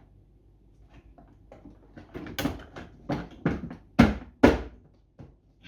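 Plastic casing of a pressure washer being pushed and knocked into place on the machine: a run of clicks and knocks that grows stronger, with two loud knocks about four seconds in.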